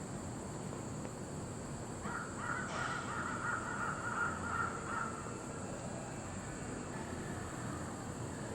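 A bird outside gives a rapid series of harsh calls for about three seconds, starting about two seconds in, over a steady background hiss.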